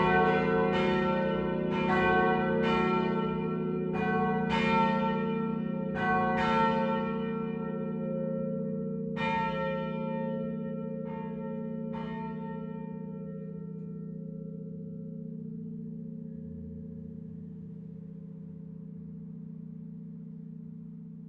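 Full peal of four church bells, tuned e, f-sharp, a and b, coming to rest. The strikes come less and less often and stop about twelve seconds in, and the low hum then slowly dies away.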